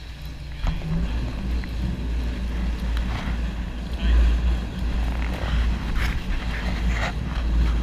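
Boat engine running, with wind rumbling on the microphone, and water splashing and churning at the stern near the end.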